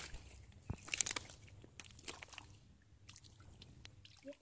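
Hands sloshing and squelching through shallow muddy water in irregular wet splashes, a child groping in the mud for fish by hand.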